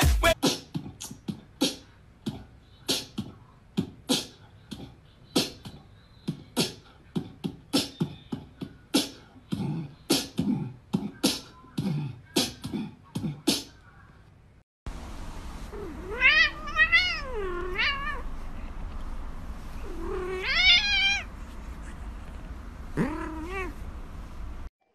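A run of sharp, irregular taps for the first half. Then a grey domestic cat meows several times in drawn-out, wavering calls while it is held.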